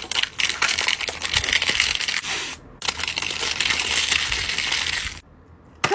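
Plastic wrapping being peeled and crinkled off a Mini Brands toy capsule ball, in two long stretches with a short break about two and a half seconds in; it stops about five seconds in.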